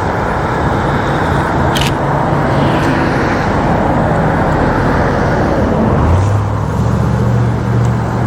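Road traffic noise of cars going by. A vehicle engine's low, steady hum comes in about six seconds in.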